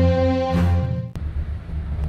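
Background music: a held chord that breaks off about a second in with a short click, leaving a quieter low part.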